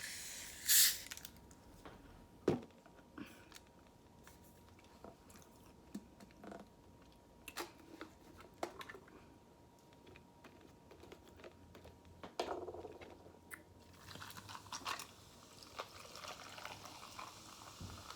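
A person chewing and biting food close to the microphone, with scattered mouth clicks and small wet smacks, and a brief hissing burst about a second in.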